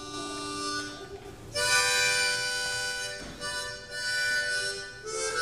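Solo harmonica playing a tune in held notes and chords, with a short drop about a second in before a louder chord sounds.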